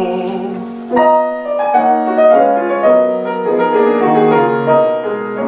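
Piano playing an interlude between sung verses of an art song: a chord held at first, then a new passage of struck chords and melody notes about a second in.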